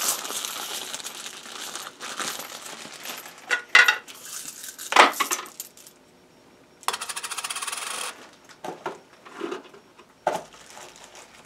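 Pennies clinking and sliding as they are handled and set on and off the metal pan of a small digital coin scale: a few sharp clinks, the loudest about five seconds in, and a short fast rattle a couple of seconds later.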